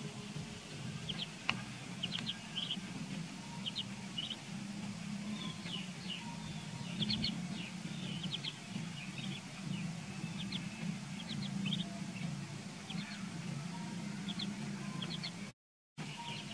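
Ducklings peeping: short high chirps, often two or three in quick succession, scattered throughout, over a steady low hum.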